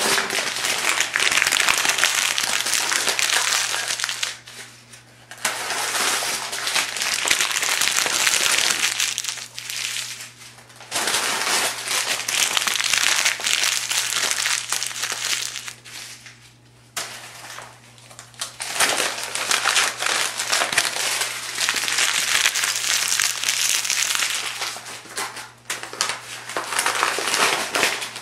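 Thin phone book pages being crumpled by hand, a dense crackling rustle that comes in bouts of several seconds with short lulls between.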